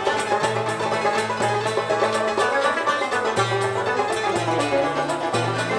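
Instrumental interlude of an Algerian chaabi song: a plucked lute playing a quick run of picked notes over a low line that steps from note to note.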